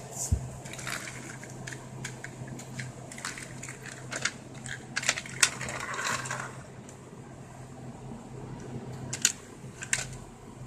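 Light plastic clicks and clatter of toy trains and track pieces being handled, scattered irregularly with a small cluster about five seconds in, over a faint steady hum.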